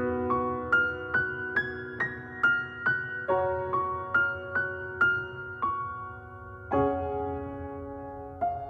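Background music: a soft piano melody of single struck notes, about two a second, each ringing and fading.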